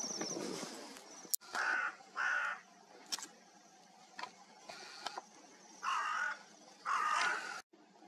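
Hooded crow cawing: four harsh caws in two pairs, the first pair about a second and a half in, the second near the end.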